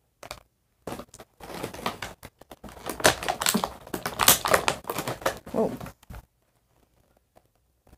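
Clear plastic packaging crinkling and clicking as small doll accessories are unwrapped by hand, a dense run of rustles and clicks that stops about six seconds in.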